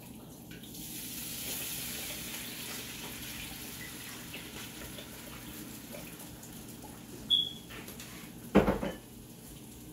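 Soy sauce being poured into a hot wok, the liquid hissing and sizzling as it hits the pan. A short high clink comes about seven seconds in, and a loud knock follows a moment later.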